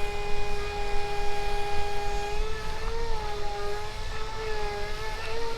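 Electric motor of a battery-powered RC racing boat whining at a steady pitch, the pitch wavering slightly from about halfway through, over a low rumbling noise.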